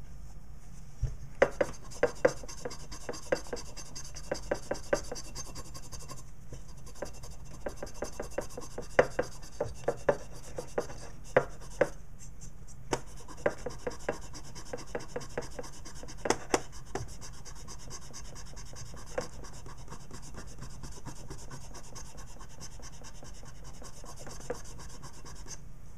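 A cloth wetted with paint thinner being scrubbed back and forth over the engravings of an aluminium AR-15 lower receiver, wiping away the excess paint. It makes a run of quick, scratchy rubbing strokes with sharp little ticks, busiest through the first two-thirds and thinning out toward the end.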